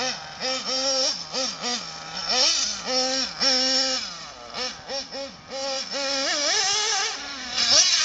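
Nitro 1:8 scale RC buggy's small two-stroke glow engine revving up and down as it races, its high note rising and dropping in quick repeated swells as the throttle is opened and closed.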